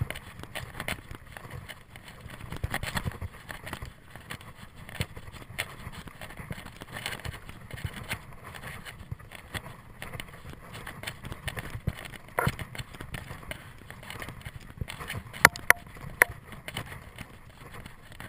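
Mountain bike rolling fast over a dirt singletrack: a steady rush of tyre and riding noise with frequent rattles and clacks from the bike over bumps. The sharpest knocks come about two-thirds of the way in.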